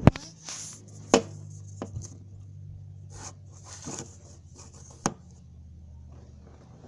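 Slime and its containers being handled: sharp plastic clicks and knocks, three loud ones (at the start, about a second in, and about five seconds in), with rustling and squishing handling noise between, over a steady low hum.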